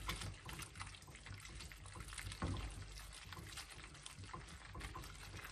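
Wooden spoon stirring and tossing spaghetti through a wet egg-and-pecorino cream in a stainless steel frying pan: a soft, wet, sticky mixing noise with irregular light clicks.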